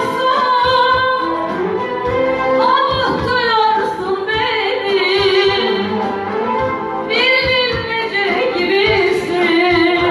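A woman singing a Turkish song in a strongly wavering, ornamented voice over musical accompaniment.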